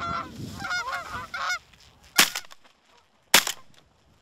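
Canada geese honking close overhead for about a second and a half, then two shotgun shots about a second apart, the second the louder.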